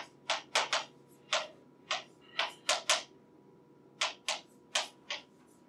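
Chalk writing on a blackboard: about a dozen short, sharp taps and scratches in uneven clusters as letters are written, with a pause of about a second in the middle.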